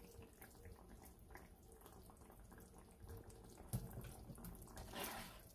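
Faint liquid sounds of pork pieces and adobo sauce being moved with a spatula in a wok, with light clicks, one louder knock of the spatula on the pan about two-thirds of the way through, and a short swish of sauce near the end.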